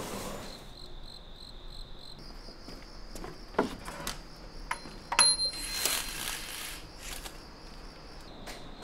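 Crickets chirping steadily in a high, pulsing note. A few sharp clicks and knocks, then a short scrape, come from the shop's glass door being unlocked and pushed open about midway.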